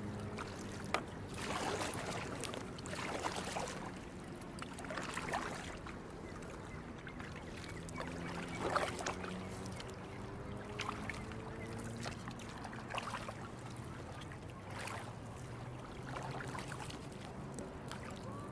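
Paddles of a two-person inflatable kayak dipping and splashing in seawater, stroke after stroke, over a steady low hum that drifts slightly in pitch.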